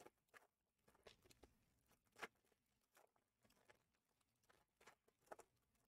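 Near silence with faint, scattered clicks and rustles of things being handled, the loudest click about two seconds in.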